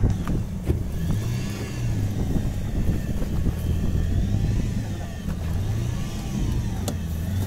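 Small fishing boat's engine running steadily, with a wavering low hum. A few light clicks, one sharp click near the end.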